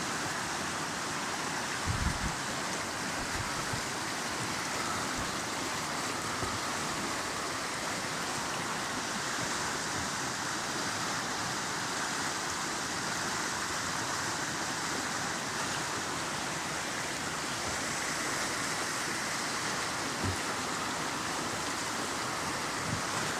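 Whitewater rapids of a small river running high, a steady rushing of the current. A brief low thump about two seconds in and another near the end.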